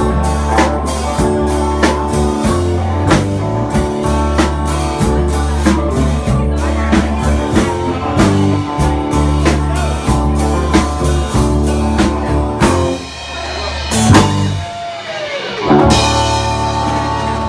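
Live blues-rock band playing an instrumental passage on drum kit and guitars with a steady beat. About thirteen seconds in the band drops out to a couple of loud drum hits and a gliding note, then comes back in on a held chord.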